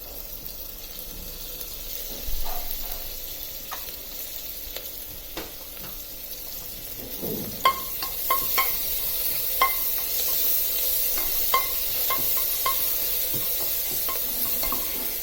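Chopped onions sizzling in hot oil in a pressure cooker, with curry leaves and mint just added. A metal spoon stirs them, clinking sharply against the pot many times in the second half, and the sizzle gets louder about halfway through.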